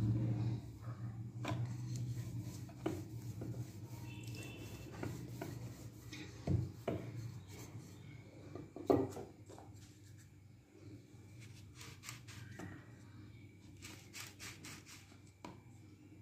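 Wooden rolling pin rumbling over biscuit dough on a wooden board, stopping about a second in. Then light knocks and taps on the board, with two louder thumps in the middle and a run of quick taps near the end as a plastic cup presses rounds out of the dough.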